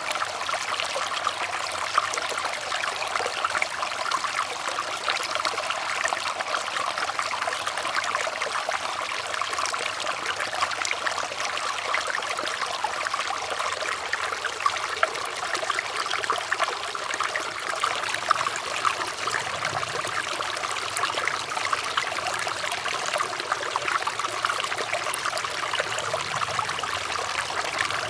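Water running and trickling steadily, a constant splashing patter with many tiny splashes and little deep rumble.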